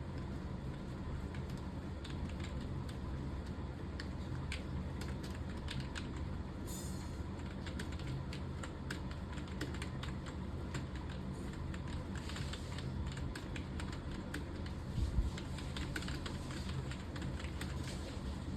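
Fast, irregular typing on a computer keyboard, a quick run of key clicks during typing-test practice, over a steady low hum.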